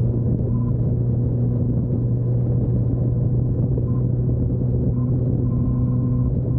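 Honda CBR1000RR's inline-four engine with a Yoshimura exhaust, running at a constant engine speed with a steady low hum that does not rise or fall.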